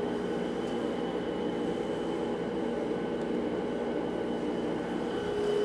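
2 horsepower Grizzly bandsaw running with a steady hum. The hum is a little weaker through most of the stretch and comes back stronger near the end.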